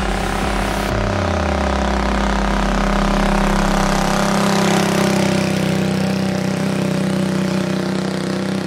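Honda Super Cub 90's small air-cooled single-cylinder four-stroke engine running steadily under load on a steep uphill climb, which it finds hard going. A low part of the engine note slides down in pitch about a second in.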